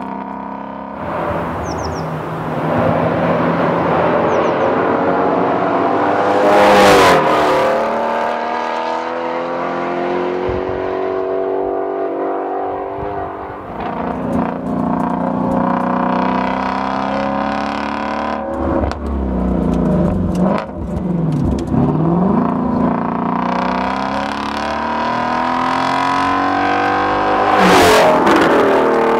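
Exhaust of a 2016 Ford Mustang Shelby GT350's 5.2 L flat-plane-crank V8, revving up through the gears with the pitch repeatedly climbing and dropping. The car passes close by about seven seconds in and again near the end, and there are quick rev swings up and down about two-thirds of the way through.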